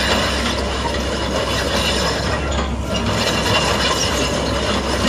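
Komatsu PC138US-10 hydraulic excavator running steadily as its upper structure swings, engine and hydraulics working.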